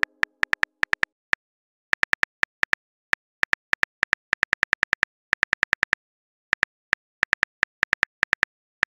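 Smartphone keyboard typing clicks, the key-tap sound effect of a texting-story app: short, sharp clicks in irregular runs of a few per second, with brief pauses.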